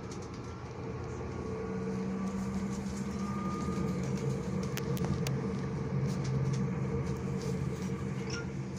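Hamburg U-Bahn DT4 train running on the line, heard from inside the car: a steady hum and whine from its electric traction drive over the rumble of the wheels, growing a little louder over the first few seconds. Two sharp clicks come about five seconds in.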